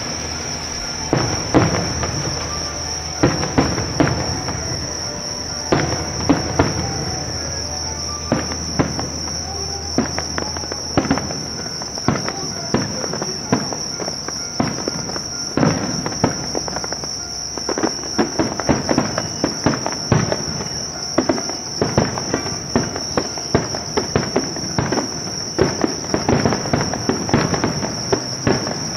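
Fireworks shells bursting and crackling at a distance, in irregular bangs that come every second or so. Under them, a steady high-pitched chorus of crickets trilling without pause.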